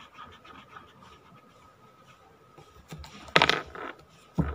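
A sketch pen scratching faintly on paper. About three seconds in, the paper is handled: a loud rustle lasting about half a second, then a short thump on the table.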